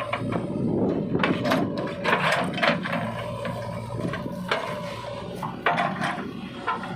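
JCB 3DX backhoe loader working, its engine running steadily under a run of irregular knocks and clatter from the digging gear.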